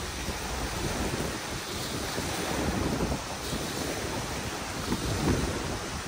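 Small wind-driven waves lapping and washing onto a sandy lake shore, with gusting wind buffeting the microphone in an uneven low rumble.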